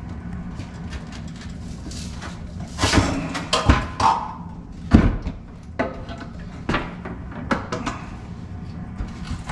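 A run of irregular knocks and clatters, like hard objects being handled and set down. The loudest come in the middle, with lighter ones after.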